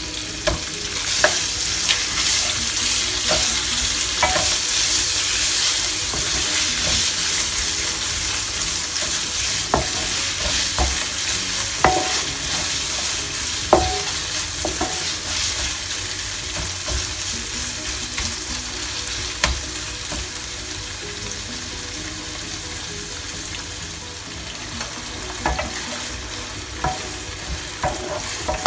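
Ground pork sizzling in hot oil in a non-stick frying pan as it is stirred with a wooden spatula: a steady frying hiss, strongest a few seconds after the meat goes in and slowly easing, with scattered knocks and scrapes of the spatula against the pan.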